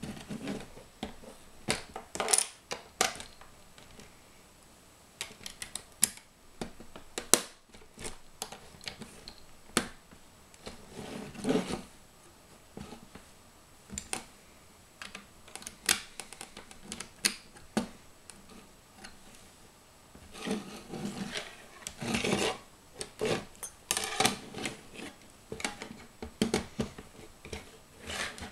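Plastic Lego bricks clicking and snapping as they are pressed onto a model, with loose pieces knocking against each other and the table. The clicks come irregularly, in short busy clusters.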